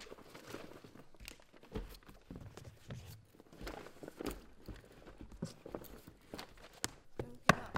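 Paper rustling and the fabric of a holdall being handled as papers are pushed into the bag and its straps are grabbed, with many small irregular clicks and a sharp knock near the end.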